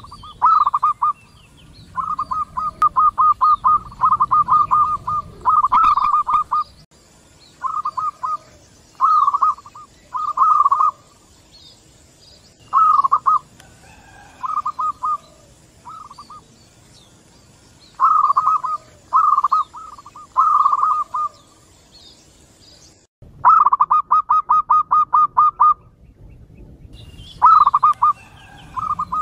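Several local zebra doves (perkutut) calling back and forth. Each call is a quick run of short staccato coos, and the calls follow one another every second or two.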